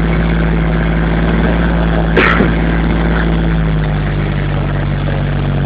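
Kubota compact tractor's diesel engine running steadily close by, its pitch sinking slightly near the end as it slows. A brief sharp sound cuts through about two seconds in.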